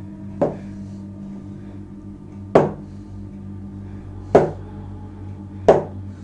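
Four sharp knocks, each dying away quickly and coming a little closer together, over a steady low drone of held tones.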